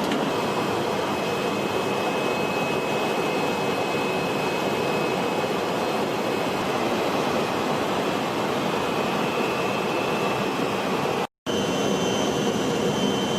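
Jet aircraft engines running with a steady rush and a faint high whine. The sound cuts out briefly about 11 seconds in and comes back with the whine at a slightly different pitch.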